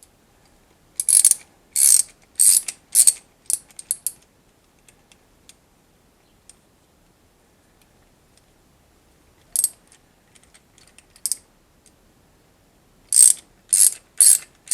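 A hose clamp being tightened in short spells of rattling clicks, three groups with pauses between. It squeezes a split steel ring onto a UAZ Patriot's steering shaft to take up the play that makes the steering wheel knock.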